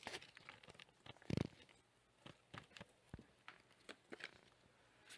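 Faint, scattered clicks and soft slides of Pokémon trading cards being handled and moved through a stack in the hands, with one soft, low thump about a second and a half in.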